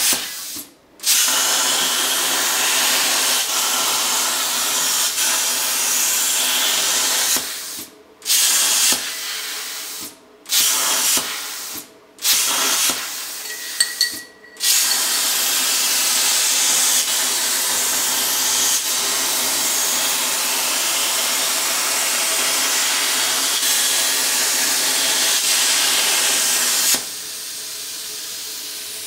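CNC plasma table cutting 16-gauge steel plate: the plasma torch's loud steady hiss stops and restarts several times in the first half, between cuts. It then runs unbroken until it cuts off near the end, leaving a fainter steady hum.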